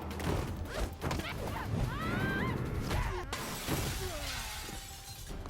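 Action-movie fight sounds: a run of sharp hits, then a crash with glass shattering, over music.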